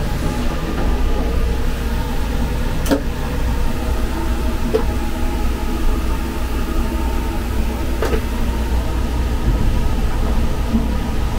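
Steady low rumble of the Sunrise Seto sleeper train, a 285 series electric multiple unit, running on the line, heard from inside its toilet compartment. Two sharp clicks come a few seconds apart.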